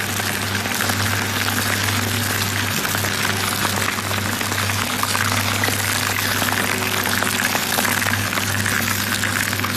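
Double-shaft shredder running, its motor humming steadily while the cutter shafts tear through foam blocks with a dense, continuous crackling.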